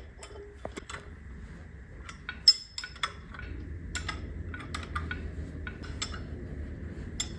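Metal clinks and clicks of bolts and wrenches being handled and tightened, one sharp click about two and a half seconds in, over a low rumble that grows stronger about halfway through.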